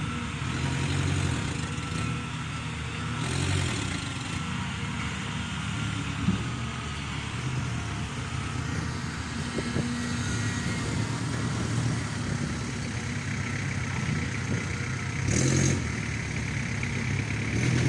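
Caterpillar hydraulic excavator's diesel engine running under work, its level rising and easing as the machine digs, with a short louder rush of noise about fifteen seconds in.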